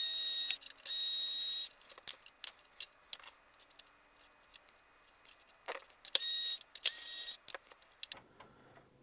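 Electric screwdriver whirring in short bursts as it backs out the screws of a PS5 Slim's board clamp. There are two runs at the start and two more about six seconds in, with small clicks of screws and tools in between.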